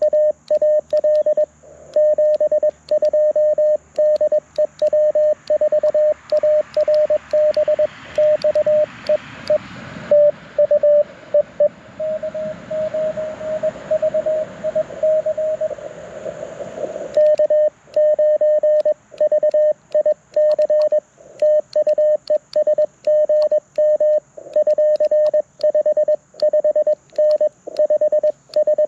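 Morse code (CW) from an LNR Precision Mountain Topper MTR4B V2 transceiver: a single-pitched tone keyed in rapid dots and dashes. From about six to seventeen seconds in, a hiss of band noise sits behind the tones, as when a station is being received; before and after it the tones are clean.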